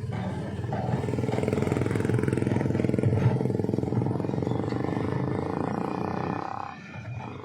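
A motor vehicle's engine running close by in slow traffic, then dropping away near the end.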